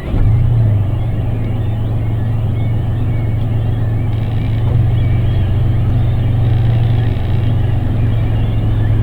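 A steady low motor hum that starts abruptly, with faint high bird chirps over it.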